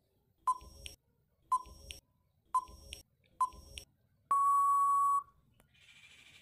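Quiz countdown-timer sound effect: four short beeps about a second apart, then one long steady beep at the same pitch lasting about a second, marking time up. A faint hiss follows near the end.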